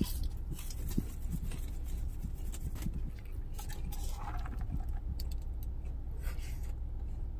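Close-up chewing and mouth noises with small scattered clicks and rattles, then sipping a drink through a straw, over a steady low hum in a car cabin.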